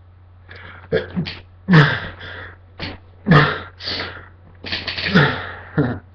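A man sneezing several times in a row, with three loud sneezes about a second and a half apart and sharp breaths between them.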